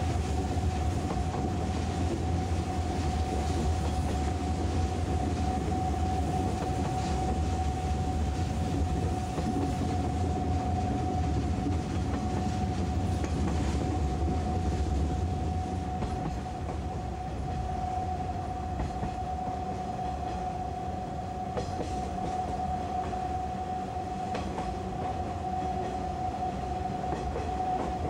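Inside a 185-series electric train running down the Usui Pass grade: a steady rumble of wheels on rail with a steady high-pitched hum over it and a few faint rail-joint clicks. The rumble eases a little about halfway through.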